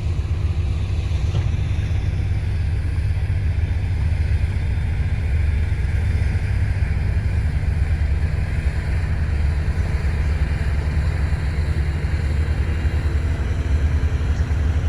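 Diesel engine of a motor grader running steadily under load as the grader works the ground, a constant low rumble.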